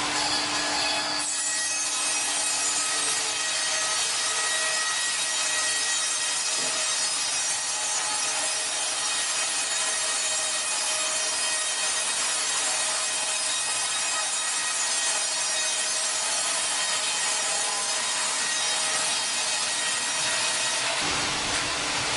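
Woodworking machine cutting wood with a steady, dense hiss and a faint hum. It starts about a second in and cuts off near the end.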